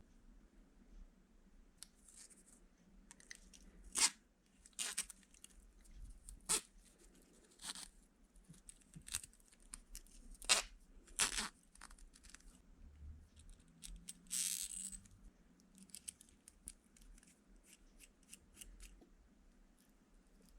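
Irregular sharp clicks and knocks of small objects being handled at a workbench, with a short scraping rustle just past the middle.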